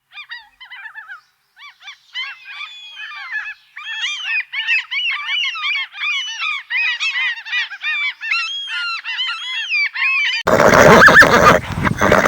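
A brood of young fowl chicks peeping: many short, high, arched calls that overlap and grow denser and louder. Near the end a loud horse whinny cuts in.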